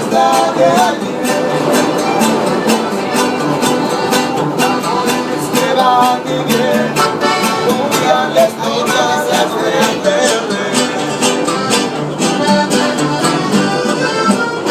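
Acoustic Latin band music: strummed guitars carrying a Spanish-language ballad through an instrumental passage between sung verses, with a steady strumming rhythm and a melody line over it.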